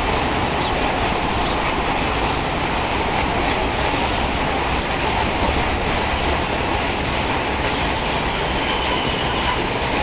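Water from a tall fountain jet in the middle of a lake falling back onto the water surface: a steady, even rushing noise.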